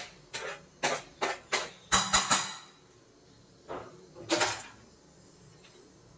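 Knife blade scraping grated coconut off a plastic cutting board into a steel pot in a quick run of short strokes, ending in a louder clatter with a couple of knocks about two seconds in. Later, one or two softer scrapes of a spoon stirring the greens in the steel pot.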